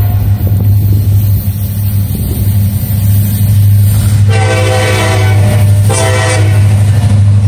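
CSX diesel freight locomotives approaching, with a steady low rumble, while the lead unit's air horn sounds a long blast about four seconds in and a short blast right after it, part of a grade-crossing horn sequence.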